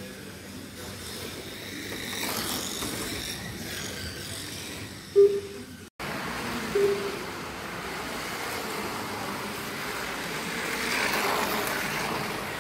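Slot cars running on a multi-lane track, a whirring hiss of small electric motors that swells as cars pass, about two seconds in and again near the end. Two short electronic beeps, the loudest sounds, come in the middle, and the sound cuts out for an instant between them.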